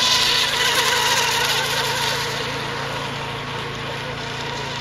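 Radio-controlled mini hydroplane racing boats running flat out across the water, a high buzzing whine. It is loudest in the first second or so and eases off a little as they pass.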